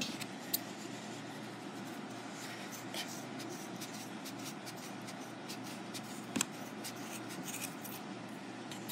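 Soft rustling and scattered light clicks from fingers picking apart a yarn pom-pom, with one sharper click about six and a half seconds in, over a steady room hiss.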